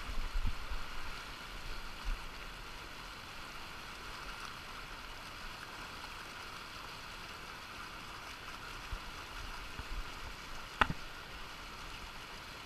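Steady rush of fast river water breaking around rocks, with a single sharp click about eleven seconds in.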